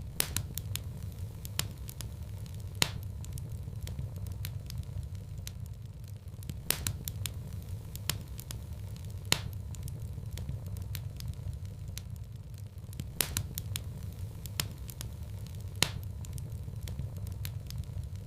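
Wood fire crackling in a fireplace: sharp, irregular pops and snaps, a few of them loud, over a steady low rumble of the flames.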